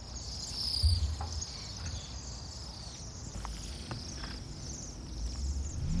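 A large flock of Bohemian waxwings calling in flight: many high, thin trills overlapping into a continuous chorus.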